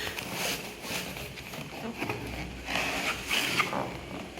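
Cardboard shipping box being handled and opened, with a series of short scraping and rustling noises, most of them between about two and four seconds in.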